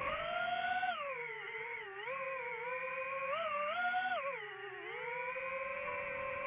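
DJI FPV quadcopter's motors and propellers whining as it flies, the pitch swinging up and down with the throttle: dipping about a second in, rising again near four seconds, dipping near five, then holding steady.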